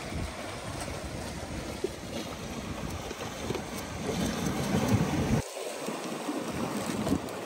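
Sea waves washing against the rocks of a breakwater, with wind rumbling on the microphone; the low rumble cuts out suddenly about five and a half seconds in.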